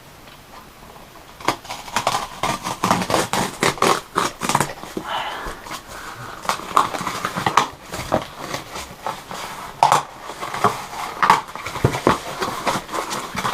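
A graphics card's cardboard retail box being opened by hand: a run of irregular crinkles, clicks and scrapes of cardboard and packaging, with brief squeaky sounds as flaps and tape are pulled.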